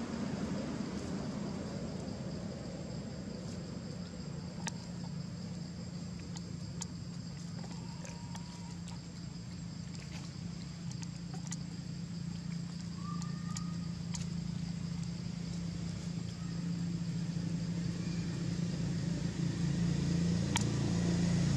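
Steady low engine drone of a motor vehicle, growing louder toward the end. A few faint clicks and one brief rising chirp about 13 seconds in.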